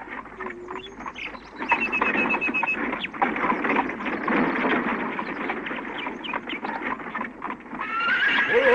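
Horse-drawn wagon approaching: rapid clopping hooves and rattling wheels on a dirt road. Near the end the horse neighs as the wagon pulls up.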